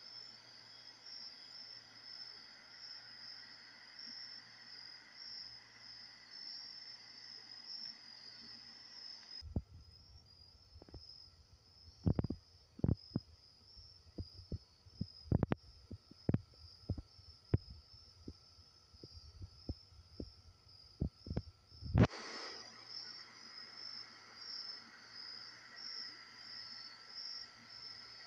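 Crickets chirping steadily. About a third of the way in the chirping cuts out, and a string of irregular sharp knocks and clicks follows. The series ends in a loud burst, after which the crickets return.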